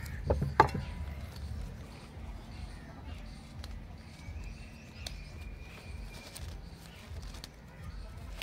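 Two sharp knocks about half a second in, then faint handling of a cloth spice bundle as it is gathered and tied with string, over a low steady rumble.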